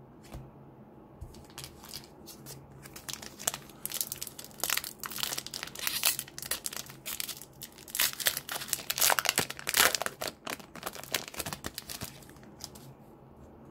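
Trading-card pack wrapper crinkling and tearing as it is ripped open. The dense crackle starts about four seconds in, is loudest about two-thirds of the way through, and dies away near the end.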